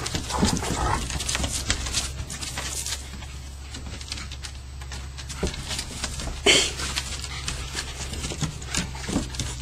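An Alaskan Malamute and a corgi moving about together: quick, irregular scuffs and clicks, with one louder, sharp sound about six and a half seconds in.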